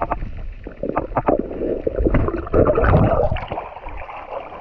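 Muffled underwater gurgling, bubbling and knocking picked up by an action camera held underwater, with splashing as it breaks the surface about three seconds in.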